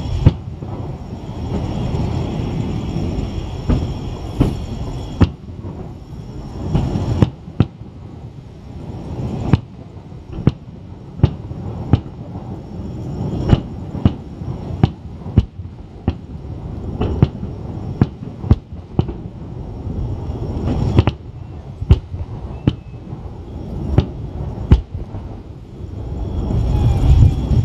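Aerial firework shells bursting in an irregular series of sharp bangs, about one a second through the middle, over a continuous low rumble that swells near the end.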